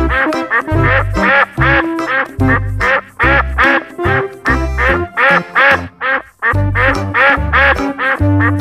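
Background music with a steady beat, full of short repeated duck-quack sounds in time with it.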